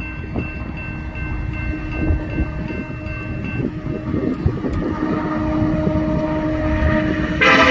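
Diesel freight locomotive in Kansas City Southern paint approaching, its rumble growing slowly louder. A loud multi-note air horn starts suddenly just before the end.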